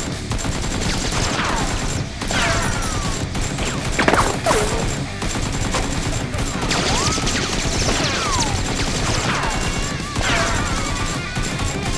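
Sustained rapid gunfire sound effects, with falling whistles about once a second, over background music.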